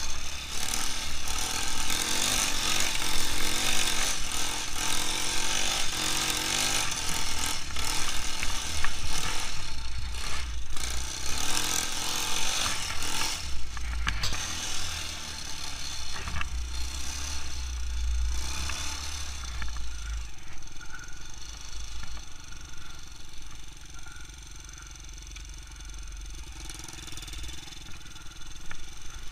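A 200 cc quad bike's engine running as it is ridden, its pitch rising and falling with the throttle, with low rumbling wind and bump noise on the mounted camera. It settles to a quieter, lower run for the last several seconds.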